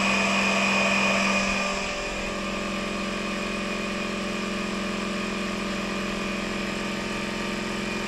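Small 12-volt air compressor for rear suspension helper airbags running steadily, a loud hum with a high whine, as it inflates the bags. It drops a little in level about two seconds in.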